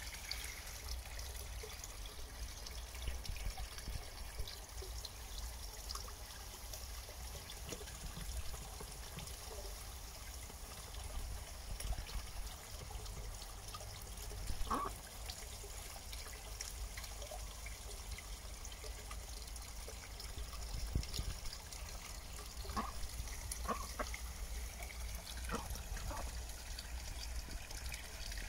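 Indian Runner ducks bathing in a shallow pond: steady trickling and splashing of water, with a few brief sharper sounds now and then.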